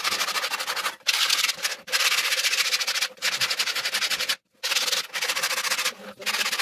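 Sandpaper held flat under the palm, hand-sanding a wooden panel in fast back-and-forth strokes. It makes a gritty scratching hiss that stops briefly every second or so as the hand shifts.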